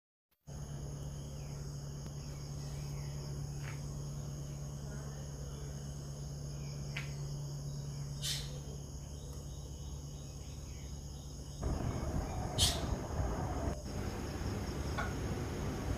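Steady high-pitched insect chirring over a low steady hum, with a few sharp clicks. The background becomes louder and rougher about twelve seconds in.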